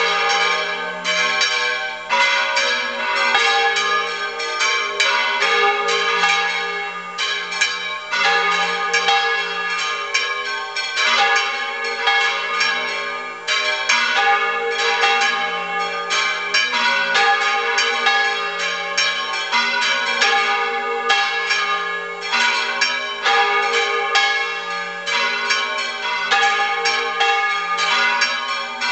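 Church tower bells rung in volteo, swung full circle, several bells striking in rapid, overlapping peals without a break.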